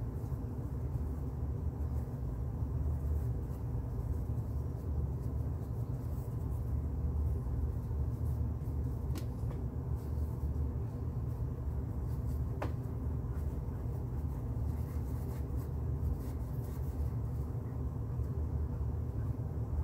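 A steady low rumble of room noise, with faint scratching of a paintbrush stroking across canvas and two soft clicks in the middle.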